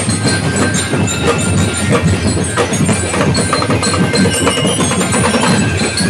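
Drum and lyre band playing on the march: struck metal bell-lyres ringing over a dense, steady drum beat.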